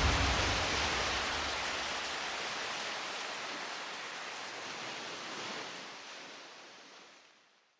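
The soundtrack's music ending on a wash of hiss-like noise that fades away steadily over about seven seconds into silence.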